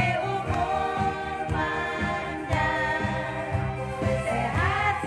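A woman singing into a microphone over amplified backing music through a PA loudspeaker, with a steady beat.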